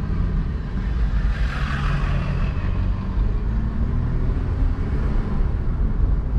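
A car driving on a city street, heard from inside the cabin: a steady low road and engine rumble, with a short swell of higher noise about one and a half seconds in.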